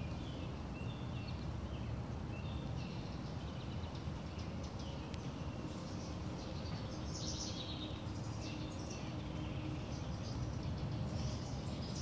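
Small birds chirping in short repeated calls, thickening into denser, buzzier calling twice in the latter half, over a steady low outdoor background noise.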